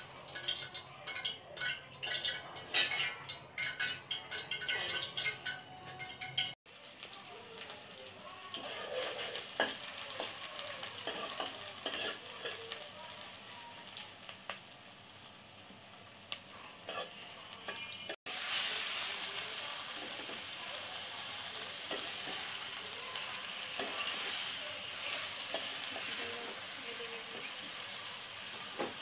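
Food frying in hot oil in a metal pot while a metal spoon stirs and scrapes. A crackly spattering at first gives way to chopped onion and whole spices sizzling, then raw chicken pieces frying with a steadier, louder sizzle from about two-thirds of the way in. The sound breaks off abruptly twice.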